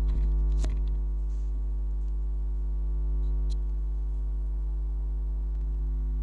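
Xbox One power supply running on test without its fan, giving a steady electrical hum at mains frequency with its overtones. A light click comes under a second in.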